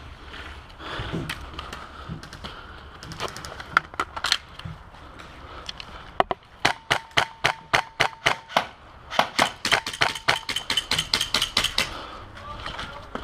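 Airsoft rifle firing: a few single shots about three to four seconds in, then two rapid strings of shots at about five to seven a second, the first starting about six seconds in and the second running from about nine to twelve seconds.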